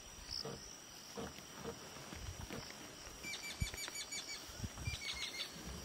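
Faint evening bush ambience: a steady high insect trill under soft low rustles and thuds. About halfway through, and again near the end, comes a short run of rapid clicking chirps, about seven a second.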